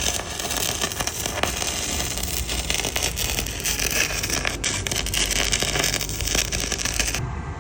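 MIG welding arc, a dense steady crackle as a weld bead is run, cutting off suddenly near the end.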